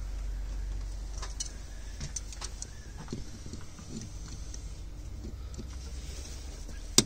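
Scattered faint clicks and taps of hands and slip-joint pliers working on the rubber fuel hose at a fuel filter, over a steady low rumble, with one sharp click near the end.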